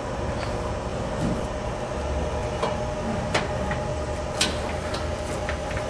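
Scattered small, sharp clicks as wires are pressed and handled in an RJ45 keystone jack, over a steady background hum.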